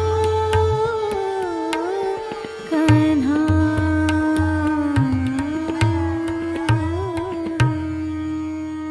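Traditional Indian music: a single sustained melody line sliding between long held notes over low drum strokes.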